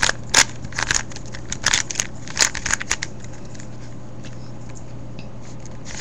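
A 3x3 Rubik's cube being turned by hand: a quick, irregular run of plastic clicks and clacks as the layers turn, thinning out after about three seconds, over a faint steady hum.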